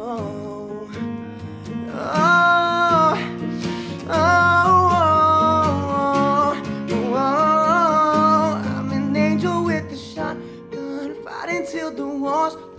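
Live acoustic pop-rock performance: a strummed acoustic guitar and a digital piano under a man singing long held notes that bend in pitch.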